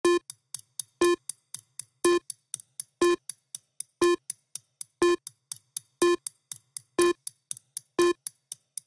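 Electronic countdown sound effect: a short pitched blip once a second, with three quieter ticks between each pair of blips.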